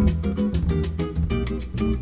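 Background music of quickly plucked strings in a steady, fast rhythm.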